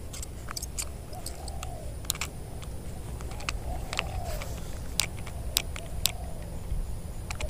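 A cheap plastic spinning reel that has broken, handled and tried by hand: scattered sharp clicks at irregular times. A bird calls softly in the background, a short rising-and-falling note about every two seconds.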